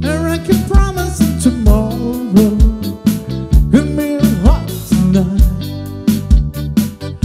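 Live band playing: a man singing lead over electric guitar, electric bass, keyboard and a drum kit keeping a steady beat.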